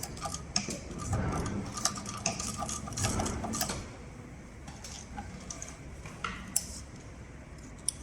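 CowBoy CB6900 heavy cylinder-bed sewing machine stitching, a fast run of needle strokes that stops about four seconds in, followed by a few scattered clicks.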